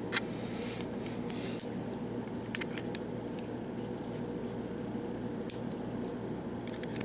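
A few scattered light metallic clicks and taps of small lock parts and tools being handled while a Euro lock cylinder is taken apart, over a steady low hum.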